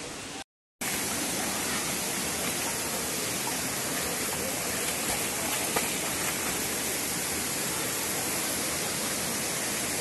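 Steady rushing of a waterfall, an even wash of water noise, after a brief break of silence about half a second in.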